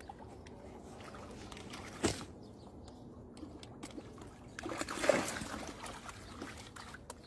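Quiet water splashing and trickling, with a single short knock about two seconds in and a louder stretch of splashing about five seconds in as a shoal of fish churns the surface.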